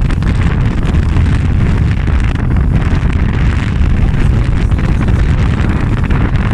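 Wind rumbling steadily and loudly on the microphone of a phone carried on a moving jet ski, with the jet ski running underneath.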